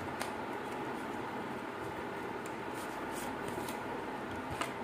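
Faint clicks and rustling of a cardboard soap box being handled and its end flap opened, over a steady background hiss.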